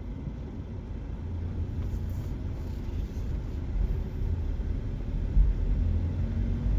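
Low, steady rumble of a car's engine and tyres heard from inside the cabin while driving slowly along a street, growing a little louder after a few seconds, with a brief low bump about five seconds in.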